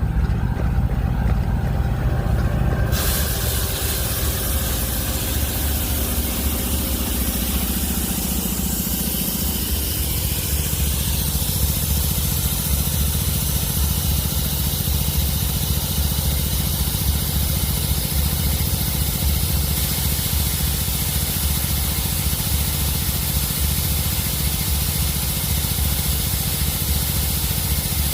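Rebuilt GE NS electric air compressor running with a heavy drone, then a loud hiss of escaping air starts suddenly about three seconds in and keeps going: compressed air being released at cutout. Around ten seconds in the drone shifts in pitch and settles into a steady hum under the hiss.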